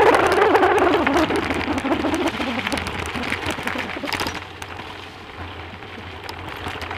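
Bicycle tyres rolling over a rough, stony dirt track, a dense crackle of gravel and rattling, with a wavering hum that fades out within the first two seconds. It gets quieter about four seconds in.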